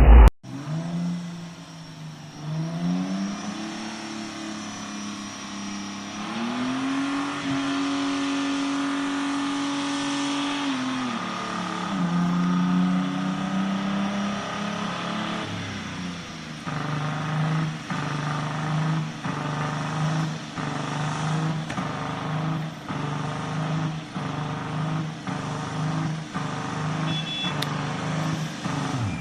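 Car engine revving: the revs climb a couple of times, are held high for about four seconds in the middle, then fall back. In the second half the engine pulses on and off about once a second.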